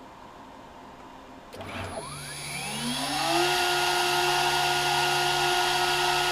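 CNC router spindle switching on about a second and a half in and spinning up with a rising whine, then running at a steady high-pitched whine.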